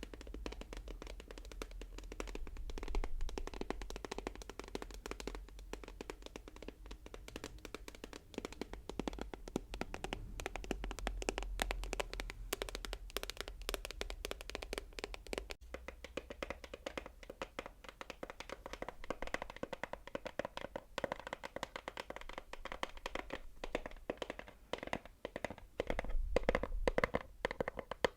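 Rapid, dense tapping, many taps a second without pause, growing louder near the end.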